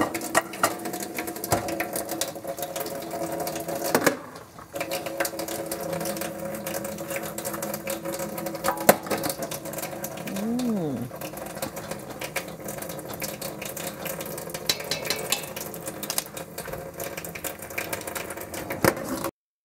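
Kitchen work at a sink and stove: dishes, pots and utensils clinking and knocking over a steady hum.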